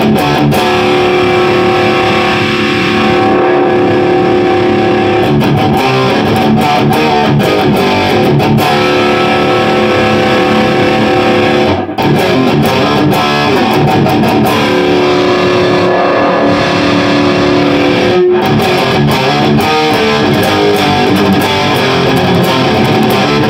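High-gain distorted electric guitar played through an Orange Dark Terror tube amp head, riffing with held chords ringing between runs and brief stops about 12 and 18 seconds in. The amp is freshly repaired and passing sound again. It is heard in the room, without a close microphone on the cabinet.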